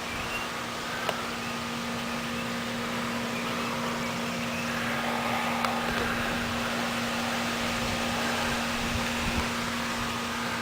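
Steady background noise with a constant low hum and a couple of faint ticks; no gunshot.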